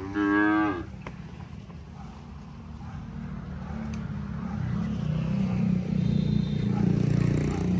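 A motor vehicle's engine running, growing steadily louder through the second half. A brief vocal sound is heard right at the start.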